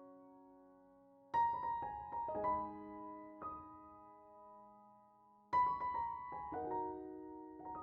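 Background piano music: slow, gentle chords struck about every four seconds, each ringing and fading away, with a few softer notes between them.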